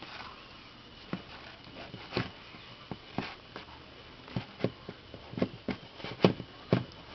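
Two turtles scuffling: a string of sharp, irregular clicks and knocks of shell and claw, coming faster in the second half.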